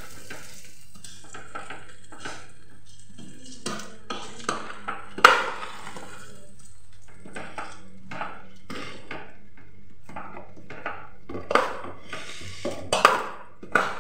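Metal spoon stirring rice in a stainless steel pot, scraping and clinking against the sides in scattered strokes; the loudest clink comes about five seconds in, and several more come close together near the end.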